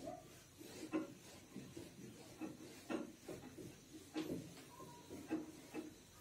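Handheld whiteboard eraser wiping across a whiteboard in short, irregular rubbing strokes, faint, with a few sharper knocks of the eraser against the board.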